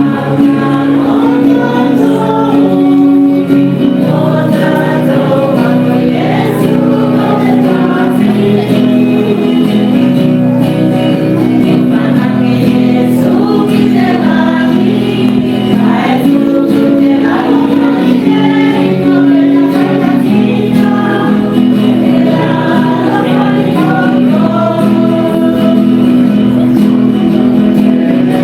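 Church choir singing a hymn, voices holding long steady notes without a break.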